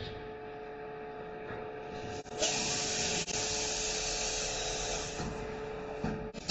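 CNC glass loading and cutting machine running with a steady hum. A bright hiss starts abruptly about two and a half seconds in and cuts off about three seconds later.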